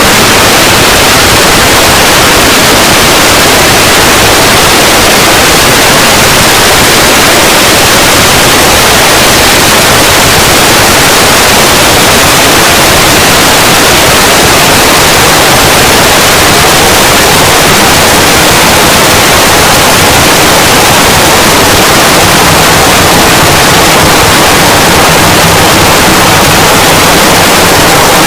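Very loud, steady static-like noise, harsh and even across high and low pitches, with no audible growl or other shape in it.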